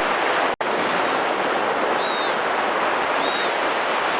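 Ocean surf washing on the beach, with wind on the microphone: a steady rushing noise. The audio cuts out for an instant about half a second in.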